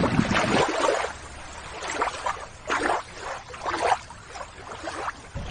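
Water splashing and sloshing in several short, irregular bursts as a toy is put back into shallow water with a net.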